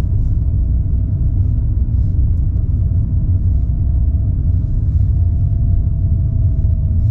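Inside a moving car on a snowy road: the engine and tyres make a steady low rumble, with a faint whine that drifts slightly lower in pitch toward the end.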